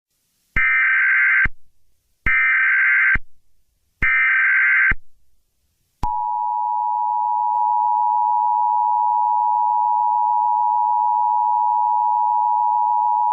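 Emergency Alert System SAME header: three short bursts of warbling data tones about a second long, each followed by a brief silence. About six seconds in, the EAS attention signal starts, a steady two-tone tone that holds on.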